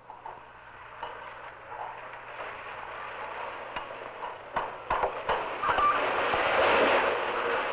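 An old truck coming along a dirt road, its engine and rattling getting steadily louder as it approaches, with scattered sharp clicks.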